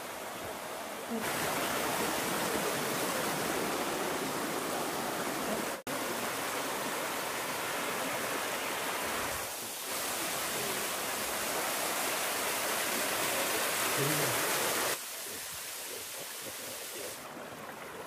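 A small waterfall rushing down a sloping rock chute, a steady even rush of water. It gets louder about a second in, cuts out for an instant near the six-second mark, and falls quieter about three seconds before the end.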